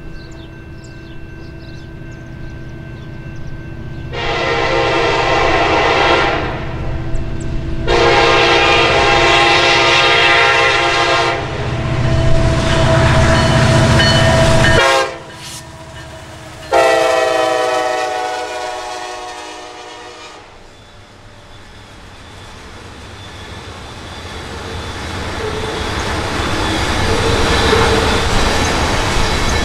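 Norfolk Southern EMD SD70ACe diesel locomotive approaching with its engine rumbling and sounding its air horn in several long blasts with a short one between them. The rumble drops away as it passes, and the loaded tank cars of an oil train roll by with steady wheel clatter that grows louder near the end.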